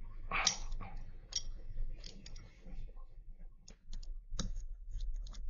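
Light irregular clicks and taps of carbon-fibre drone frame arms and plates knocking together as they are fitted by hand.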